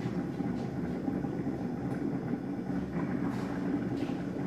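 Hamilton Beach coffee maker percolating, a steady low rumble.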